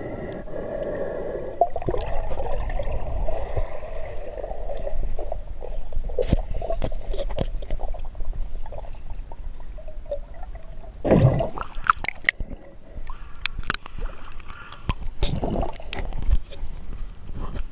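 Muffled underwater sound picked up through a GoPro's waterproof housing: a steady low rumble of moving water with gurgling and scattered clicks and knocks against the housing. A louder rush of water comes about eleven seconds in, and another near fifteen seconds.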